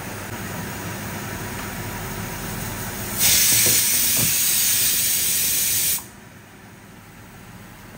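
Steam hissing from pots on the boil on a stovetop: a steady hiss, then a much louder hiss for about three seconds, from about three seconds in, that starts and cuts off abruptly.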